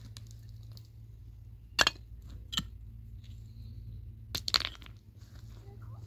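Hard objects knocking together in a few sharp clinks: a quick double knock about two seconds in, a single one just after, and another close pair near the end, over a low steady hum.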